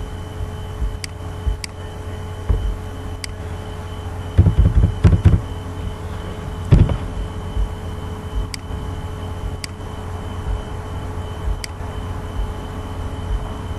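Sparse sharp clicks and a few duller taps from a computer keyboard and mouse, over a steady low electrical hum. The duller taps come in a short cluster about four to five seconds in and once more near seven seconds.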